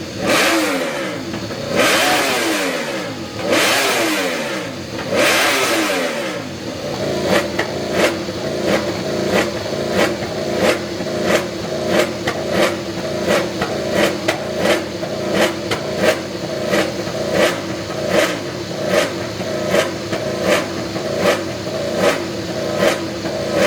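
A high-performance engine is revved in four sharp blips, its pitch falling back after each one. About six seconds in it settles into a steady fast idle, with a sharp tick about twice a second.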